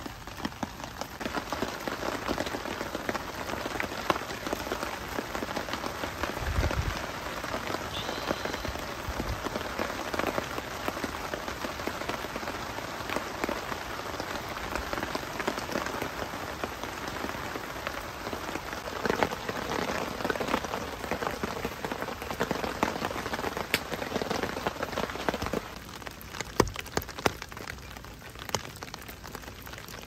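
Steady rain pattering, with scattered sharper ticks; it eases a little near the end.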